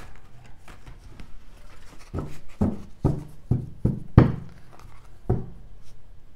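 Tarot cards being shuffled by hand, a light rustle of cards sliding together, with a run of about seven short knocks in the middle as the deck is squared up on the table.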